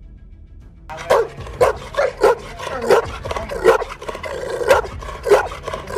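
Large mastiff-type dog barking over and over in a steady run, a little under two barks a second, starting about a second in.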